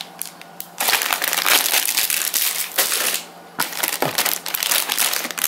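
Clear plastic bags of model-kit parts runners crinkling as they are lifted and handled in their box, in two stretches with a short pause about three seconds in.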